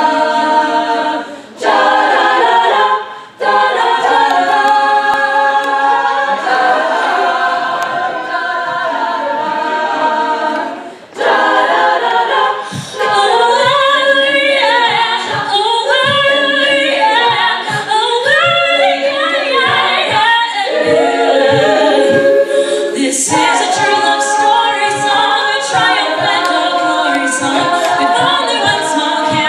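Women's a cappella group singing in close harmony, with held chords and short breaks in the first ten seconds or so. About thirteen seconds in, a vocal-percussion beat comes in under the voices.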